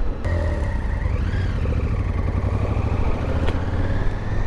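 Onboard sound of a Honda Africa Twin CRF1000 motorcycle under way: a steady low engine drone mixed with wind rumble. A thin whine rises and falls once about a second in, and a single sharp click comes about three and a half seconds in.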